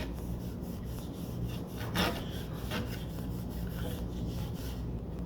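A cloth dampened with naphtha rubbed back and forth over the gilded finish of an old picture frame in quick, even strokes: a solvent test to see whether the bronzing touch-up dissolves.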